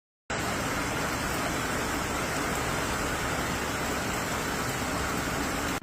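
Steady, even rush of water with no let-up, filling all pitches, in flash-flood footage. It starts just after a brief silence where the footage cuts in and stops abruptly at the next cut.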